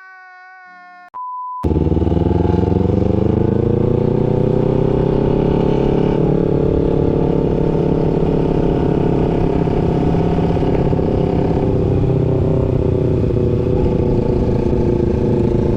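A short electronic sound effect and a brief steady beep, then a 250 cc parallel-twin sport motorcycle running at a steady cruise, with heavy wind noise on the helmet microphone.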